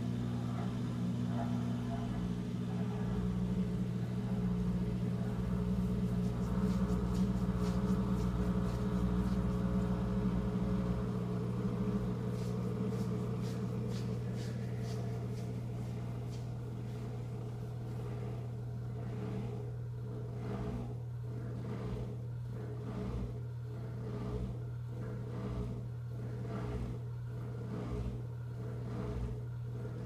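Samsung dishwasher's drain pump running steadily after a cancelled cycle, pumping the tub water out through the drain hose into a bucket. In the last third the hum takes on a regular pulsing, roughly once a second.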